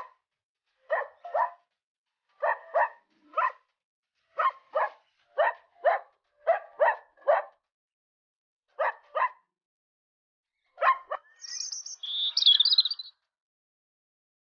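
A dog barking: well over a dozen short, sharp barks, mostly in quick pairs. Near the end a bird chirps briefly in high, fluttering notes.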